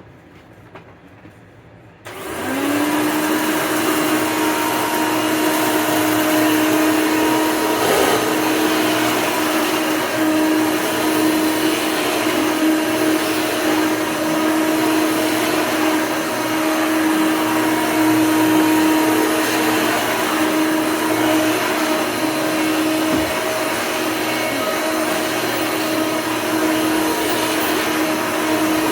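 Hoover Elite II upright vacuum cleaner switched on about two seconds in. Its motor comes up to speed with a short rising hum, then runs steadily with a loud, even whoosh of air and a constant motor tone.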